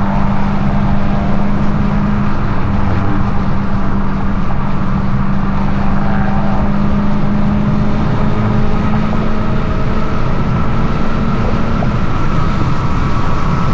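Supercharged Hemi V8 of a Dodge Challenger SRT Hellcat running under way at a steady pitch, its exhaust note droning evenly.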